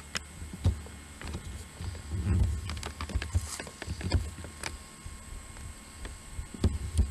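Sound track of home camcorder footage picked up by the camera's built-in microphone: irregular knocks and rustling handling noise, with a low rumbling stretch a couple of seconds in, over a thin steady high whine.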